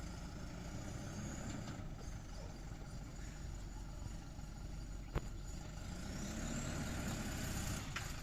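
An engine idling steadily with a low rumble, with one sharp click about five seconds in.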